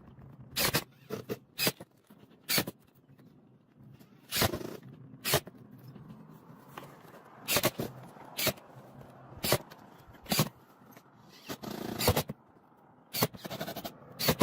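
Irregular sharp knocks and scrapes, about a dozen hits unevenly spaced, with a longer scrape about twelve seconds in.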